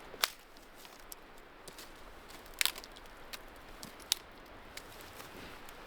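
Dry twigs and branches snapping in a few sharp cracks, one right at the start, a double crack about two and a half seconds in and another about four seconds in, over a steady rush of wind in the forest.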